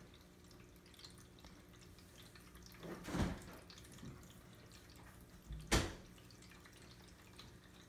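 Plug-in pet water fountain running: a faint steady hum with water trickling and dripping. Two soft thumps come about three and six seconds in.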